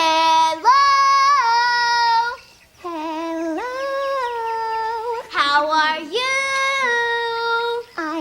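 Wordless singing: three long held phrases, each starting on a lower note and stepping up to a sustained higher one, the second phrase quieter than the other two.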